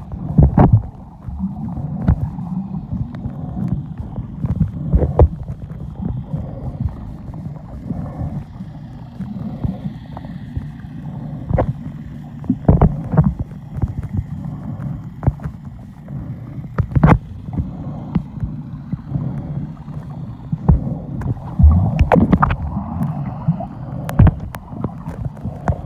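Muffled underwater sound picked up by a submerged camera: a continuous low rumble of moving water, with scattered sharp clicks and knocks throughout.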